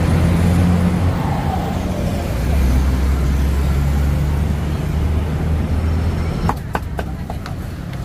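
Busy city street traffic with a vehicle engine running close by, a steady low hum. About six and a half seconds in it gives way to quieter street noise with a run of sharp clicks and clinks from metal utensils at a street-food stall.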